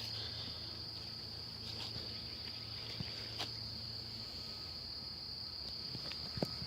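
Insects chirring in a steady, unbroken high-pitched drone, with a few faint taps now and then.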